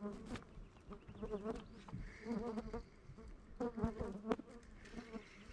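Flies buzzing close to the microphone, the buzz rising and falling in pitch as they come and go, with a few sharp clicks.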